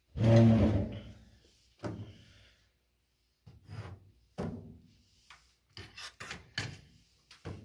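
A loud hollow thump of hands on a tabletop right at the start, then a series of short knocks and scrapes as a hatchet, knives and their sheaths are picked up and set back down on the table.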